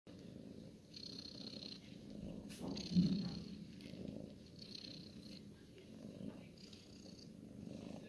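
Black cat purring steadily while being stroked, the purr rising and easing in waves about every one and a half to two seconds. A short muffled bump about three seconds in is the loudest moment.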